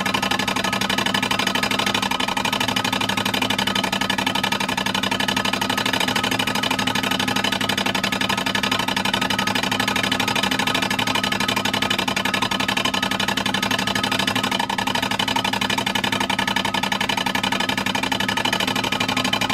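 Fire alarm of a Federal Enterprises oval pull box sounding continuously after being pulled: a steady, unbroken buzzing alarm tone at an even level.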